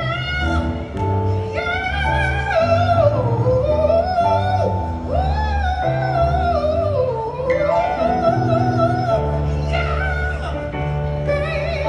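A male singer's wordless vocal runs, sliding up and down in pitch, over a live band's steady bass and chords.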